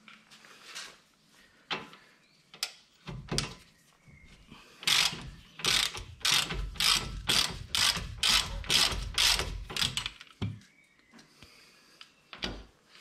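Ratchet wrench clicking as a nut on a tie rod end is worked loose: a few single clicks, then a quick run of even ratcheting strokes, two to three a second, for about five seconds, then two more clicks near the end.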